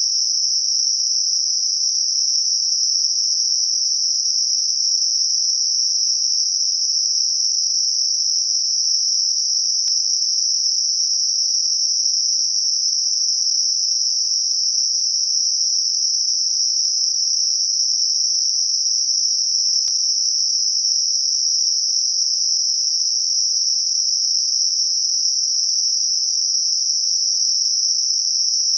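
Synthetic Gaussian narrow-band noise centred on 5.5 kHz: a steady, even high-pitched hiss confined to a band of roughly 4 to 7 kHz, with no low sound under it. It is a tinnitus masker tuned to high-frequency ringing around 5.5 kHz.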